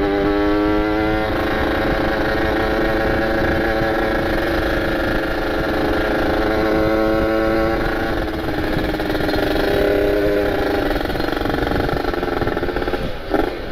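Kawasaki Ninja RR 150cc two-stroke single running under way at fairly steady revs, with wind rushing on the microphone. Its note climbs briefly in the first second and changes about eight seconds in. The engine is still being run in, and its carburettor setting is still on the rich side in the cold.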